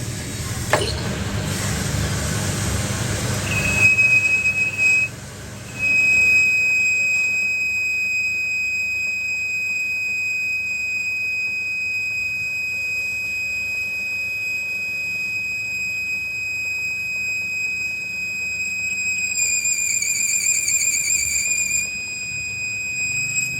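A steady high-pitched mechanical squeal that breaks off briefly about five seconds in, then holds on and wavers for a moment near the end, after a few seconds of rough machining noise.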